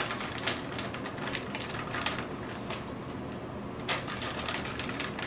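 A small plastic snack bag crinkling and rustling as a hand reaches in, with crunchy chewing: a string of irregular crackles and clicks.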